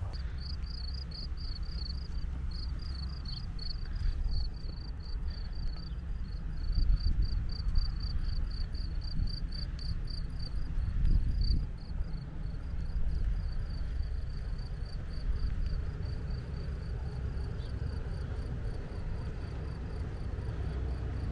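Cricket chirping steadily, a quick even run of high chirps several times a second, over a low rumble of wind on the microphone.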